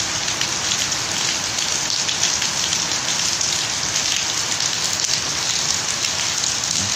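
Heavy rain falling steadily: a dense, even hiss of drops with fine patters.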